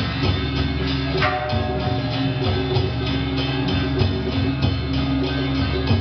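Music with a fast, steady drum beat and held melodic notes over it.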